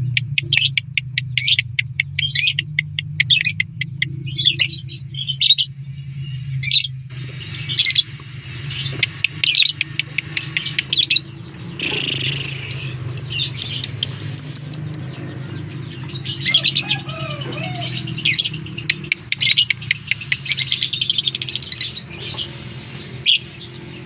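Lovebird's rapid chattering song: fast runs of high chirps, repeated in bursts one after another. A low steady hum runs underneath for most of it.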